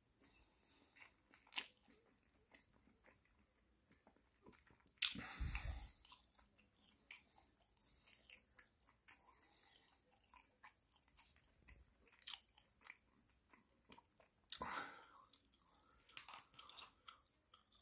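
A person chewing and biting food close to the microphone, quiet and intermittent, with small wet clicks. Two louder brief bursts come about five seconds in and again near fifteen seconds.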